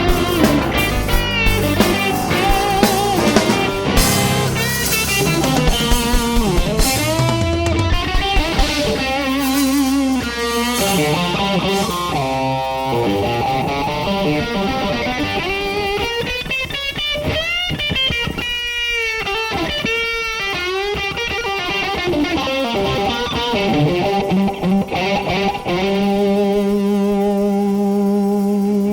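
Blues-rock band playing live in an instrumental break: a lead electric guitar plays bending notes with vibrato over drums, ending on a chord held steady for the last few seconds.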